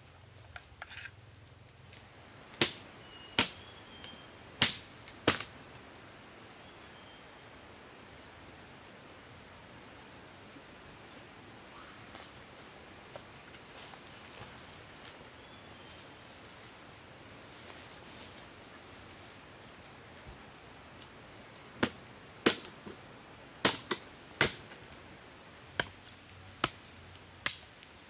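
A steady high-pitched insect drone, with sharp knocks of a machete blade chopping wooden sticks: four a few seconds in and a quick run of them near the end.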